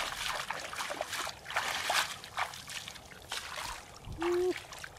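Footsteps wading through shallow water and soft mud: irregular sloshing and splashing steps.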